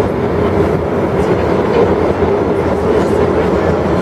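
Metro train underway, heard from inside a crowded passenger car: a steady running rumble of wheels and motors with a constant hum.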